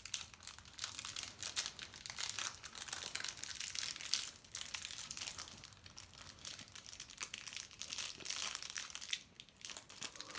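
Clear plastic wrapper bag crinkling as a small eraser toy is worked back into it, a run of irregular crackles with a short lull near the end.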